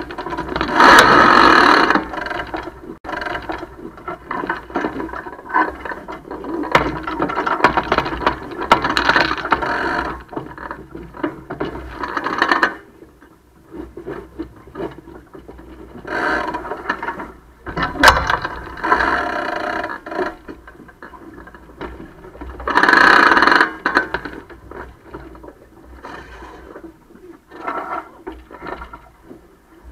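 Sailboat winches ratcheting and lines running through deck hardware in repeated bursts of a second or two, over a steady rush of wind and water.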